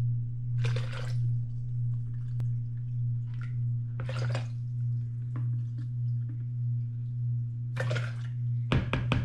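Water poured from a plastic bottle through a funnel into a plastic bucket, with short glugs about a second in, at about four seconds and near eight seconds, and a few clicks of the bottle near the end. A steady low hum runs underneath and is the loudest sound.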